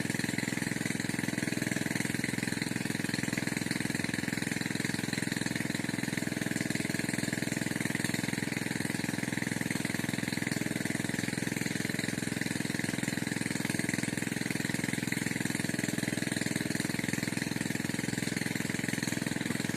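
An engine running steadily close by, with a fast, even rattle that does not change.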